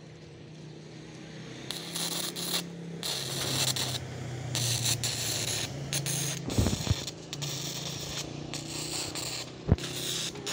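Electric arc welding on steel trusses: a crackling hiss that starts and stops in bursts, over a low steady hum. Two short thuds, one past the middle and one near the end.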